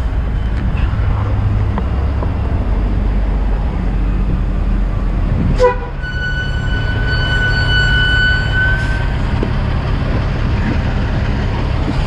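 Heavy truck's diesel engine idling with a steady low hum. A sharp metallic clank comes just past halfway, then a steady high whistling tone that lasts about three seconds.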